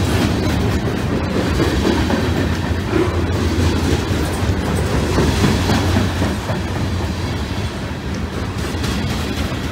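Loaded freight cars, a boxcar and covered hoppers, rolling past at speed, their steel wheels running on the rails with a loud, steady noise.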